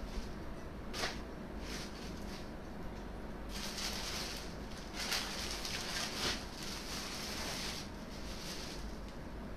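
Rustling of garments being handled: brief rustles in the first couple of seconds, then a longer stretch of rustling from about three and a half to eight seconds.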